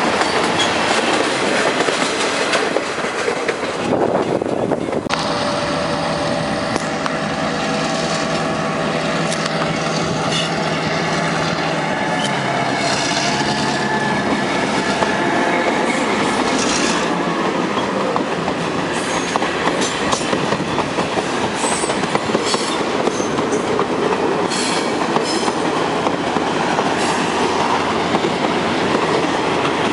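Freight cars rolling past close by, then a train led by F-unit diesel locomotives passing beneath, its diesel engines running with a pitch that drops a little as they go by. Boxcars follow, clattering over the rails.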